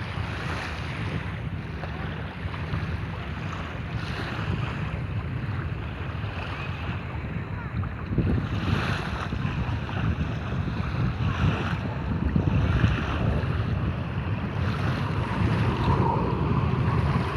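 Sea waves washing in and breaking, rising in repeated surges every few seconds over a steady low rumble, with wind buffeting the microphone.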